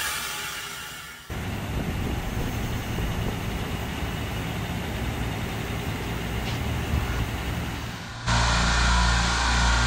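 A swishing sound fades out during the first second. Then a steady mechanical drone runs outdoors. About eight seconds in it jumps to a louder, steady low hum from a refrigeration machine room with parallel compressor racks running.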